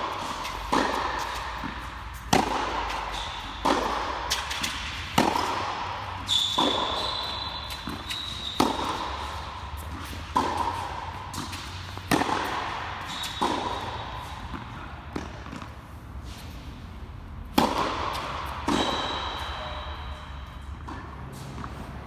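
Tennis ball struck back and forth with rackets in a rally: sharp hits about every second and a half, each echoing in an indoor tennis hall, with a few brief high squeaks of shoes on the court.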